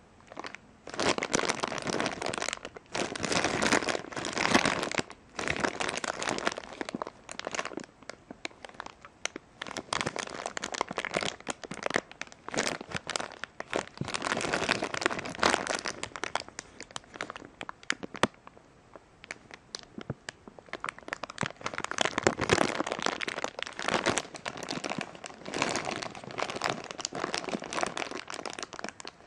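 Thin clear plastic bag crinkling as hands handle it, in irregular bursts with short pauses.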